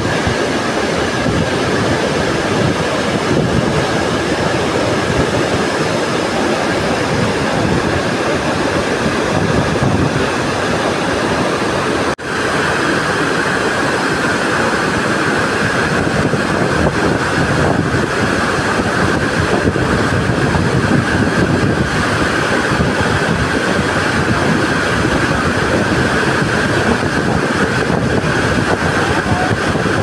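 Steady roar of a large waterfall in heavy flow, water pouring over rock and crashing into whitewater below. It cuts out for an instant about twelve seconds in.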